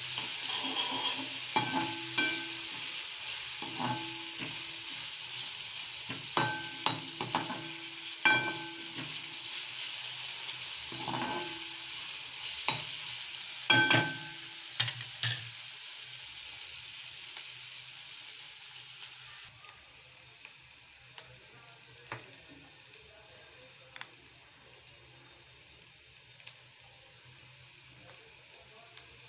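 Vegetables sizzling in a hot metal kadai as a slotted metal spoon stirs them, scraping and clinking against the pan with short ringing knocks. The sizzle drops noticeably about two-thirds of the way in, and the clinks become sparse.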